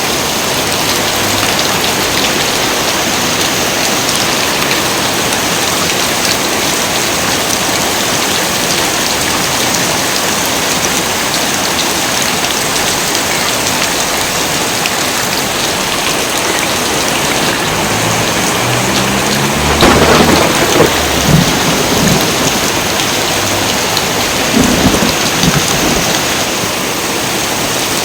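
Heavy rain pouring steadily, with thunder rolling through the last third: a low rumble that builds into two clusters of louder cracks a few seconds apart.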